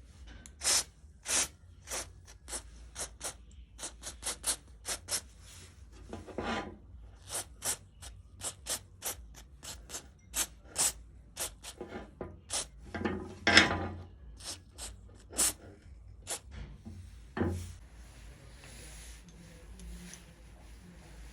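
Short scraping strokes of a hand tool on steel pliers, irregular at about one to two a second, with a longer, harder stroke about two-thirds of the way through; the strokes stop some seconds before the end.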